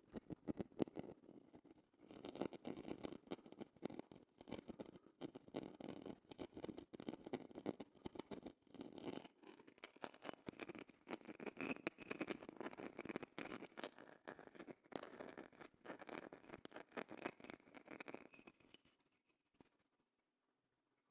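Rapid close-miked scratching and tapping on a shell, a dense run of small clicks that stops abruptly near the end.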